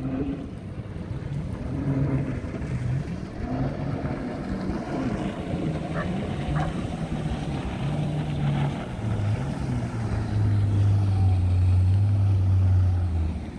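Small powerboat engine running on the water, its pitch wavering up and down, then settling into a louder, steadier drone for the last few seconds.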